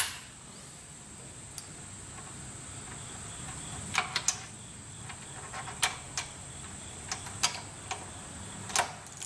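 Click-type torque wrench and socket tightening the cylinder head bolts of a Cummins 8.3 L diesel to the first torque step: short sharp metallic clicks, singly and in pairs, starting about four seconds in as the wrench breaks over and is moved from bolt to bolt.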